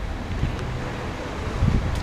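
Wind buffeting the microphone: steady low rumbling noise with a few stronger gusts near the end.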